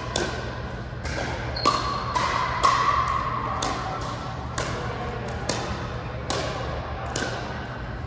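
Pickleball rally: the sharp pops of paddles hitting a plastic ball and the ball bouncing on the court floor, one or two a second, each ringing briefly in a large hall.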